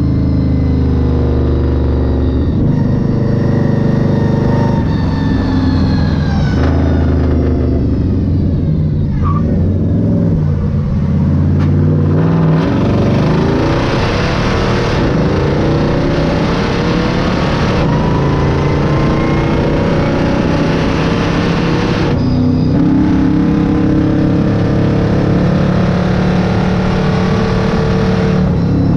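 1968 Dodge Charger stock car's engine running loud under way, its pitch climbing and falling as it accelerates and shifts through the first half, then settling to a steady drone for the last several seconds.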